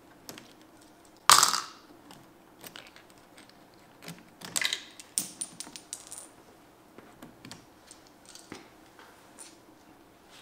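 Sharp metallic clinks and clicks of small hardware being handled on the fader section of an Avid SC48 mixing console: one loud clink about a second in that rings briefly, then a cluster of lighter clicks and clinks around the middle.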